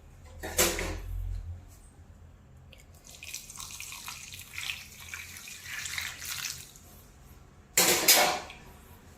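Milk being poured into a bowl of mashed sweet potato and jaggery, a soft pouring hiss for a few seconds, with a short knock about half a second in and a louder one near the end.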